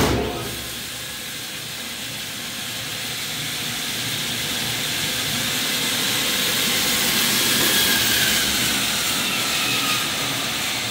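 Biro 3334 meat band saw switched on with a sudden clunk, then running steadily with its blade whirring, with nothing being cut.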